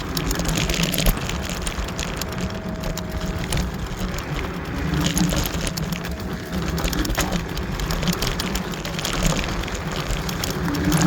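Kaabo Wolf Warrior electric scooter on the move: a steady rushing noise of wind and tyres over a low hum, with a faint whine that comes and goes.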